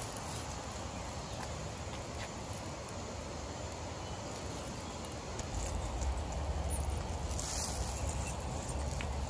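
Outdoor ambience on a wooded path: a steady hiss, joined about halfway through by a low rumble of walking and handling noise on the camera's microphone, with a few light clicks.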